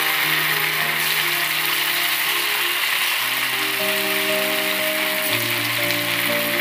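Rice-dough balls deep-frying in hot coconut oil, a steady sizzle. Background music with slow, held notes plays throughout.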